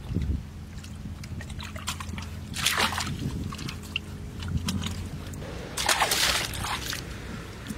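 Muddy water splashing and sloshing as hands scoop and throw it at the mouth of a hole in a dirt bank, in two bursts: a short one about a third of the way in and a longer one about three quarters in. A faint, steady low hum runs underneath.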